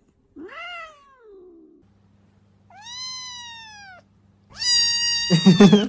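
A cat meowing three times: a short falling meow, then two high, drawn-out meows. The last meow is the longest and loudest, with a rough, louder burst near its end.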